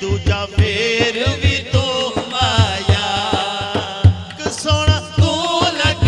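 Naat sung by a man's voice in long, wavering drawn-out notes over a steady low beat of about three thumps a second.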